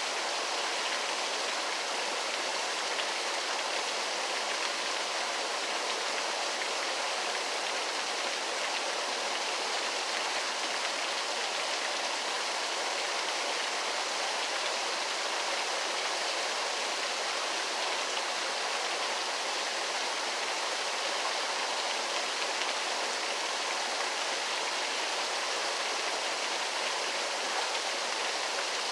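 Waterfall rushing steadily, a constant even hiss of falling and splashing water with no change in level.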